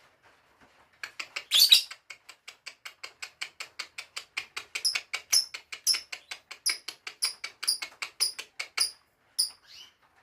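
Lovebird chirping in a fast, even series of short high chirps, about five a second, starting about a second in, with louder, higher squeaks in the second half before it stops near the end.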